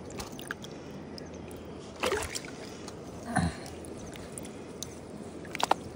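Water sloshing and trickling, with three short splashes: about two seconds in, about three and a half seconds in, and near the end.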